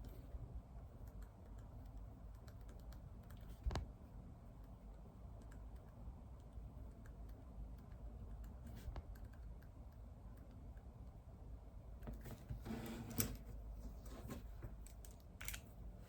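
Faint typing on a computer keyboard, soft key clicks, with a single louder knock about four seconds in and a busier stretch of clicks and handling sounds in the last few seconds.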